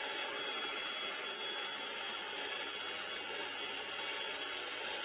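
Drill press running steadily with a high whine, its bit spinning after breaking through the aluminium bed plate.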